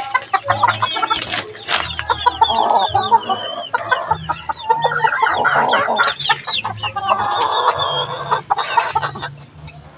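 Chickens clucking and calling, with many short, high calls overlapping throughout and a few sharp knocks about a second and a half in.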